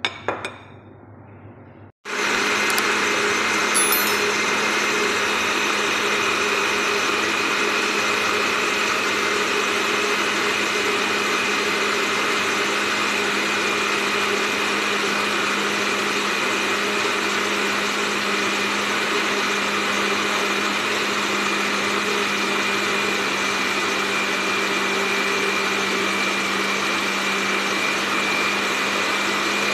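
Black+Decker countertop blender motor running at one steady speed, blending a creamy basil and parmesan sauce. It starts abruptly about two seconds in, after a couple of sharp knocks.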